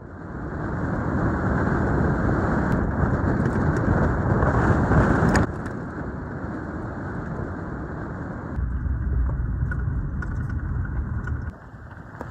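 Subaru Outback driving on a dirt road: steady tyre and engine noise that drops suddenly about five seconds in, then a deeper rumble that builds for a few seconds near the end.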